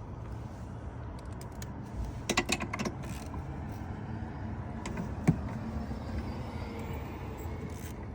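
Hand tools and small metal parts clinking and rattling as a fastener or connector is worked: a quick cluster of clicks about two seconds in and a single sharp click about five seconds in, over a steady low hum.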